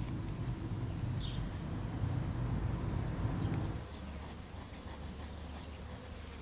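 Pencil scratching as it draws lines on a small wooden block. A low rumble underneath stops abruptly about four seconds in.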